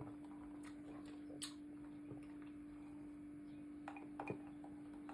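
Quiet room tone with a steady low hum, broken by a few faint short clicks, one about a second and a half in and a small cluster near the end.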